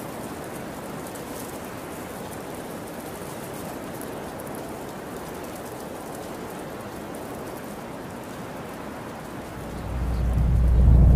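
Steady, even hiss of a wintry wind-and-snow ambience. About ten seconds in, a deep low rumble swells up loudly.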